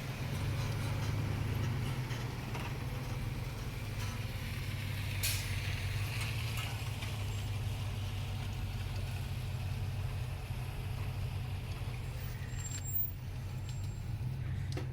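Steady low engine rumble of a heavy road vehicle in street traffic, with a brief hiss about five seconds in.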